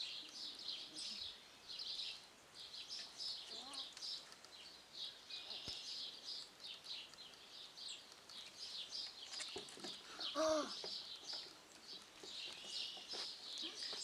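Birds chirping steadily outdoors in many quick, overlapping notes. About ten seconds in comes a short cry.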